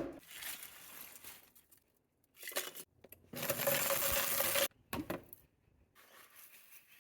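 Hard plastic scraps from failed 3D prints and supports clattering as they are dropped and poured. There is a sharp knock at the start, then several bursts of rattling, the loudest lasting over a second in the middle.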